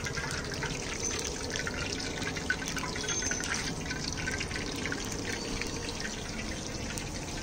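Besan-battered green chillies sizzling in a kadai of hot oil, a steady dense crackle as they fry into bhajiya.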